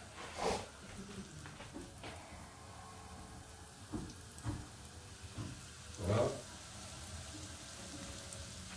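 Chopped shallots sizzling quietly in oil in a non-stick frying pan, with a few brief knocks of handling, the loudest about six seconds in.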